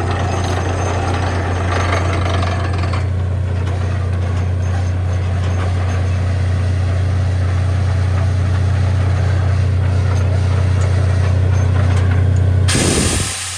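Borewell drilling machine running steadily, its engine giving a loud, deep, unbroken hum under a rough noise. Near the end the hum cuts out abruptly and a brighter hiss takes over.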